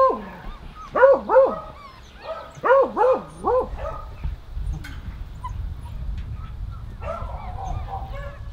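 Beagle hounds barking: about six short, arched barks in the first four seconds, then fainter calls near the end over a low rumble.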